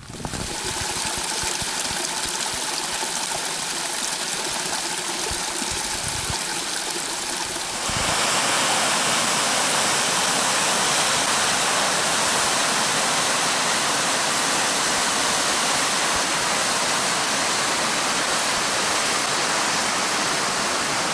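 Snowmelt creek cascading over granite slabs: a steady rush of water. About eight seconds in the rushing jumps louder and brighter.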